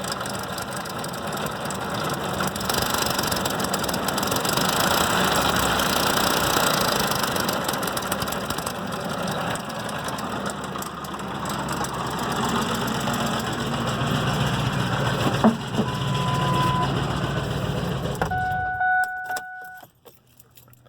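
2004 Ford Expedition's 4.6-litre V8 running with a loud rattling, its idle wavering as if about to stall; the owner cannot tell whether the timing chain, a lifter or a rod is to blame. Near the end the engine is switched off and a short electronic chime beeps.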